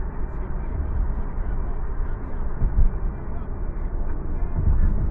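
Steady low road and engine rumble heard inside a moving car's cabin, briefly louder a little under three seconds in.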